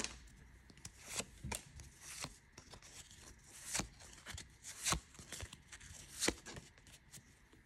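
A stack of Pokémon trading cards being handled and sorted, with card sliding against card. The result is soft, irregular flicks and snaps of card edges, about one every second or so.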